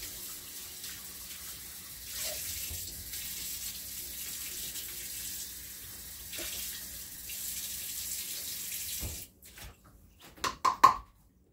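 Kitchen tap running steadily into the sink while a measuring cup is washed by hand. About nine seconds in the water shuts off, followed by a few short knocks.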